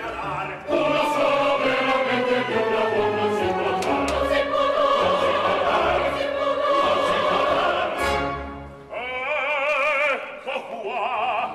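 Opera chorus singing with the orchestra, ending in a sharp accent about eight seconds in, followed by a single voice singing with wide vibrato.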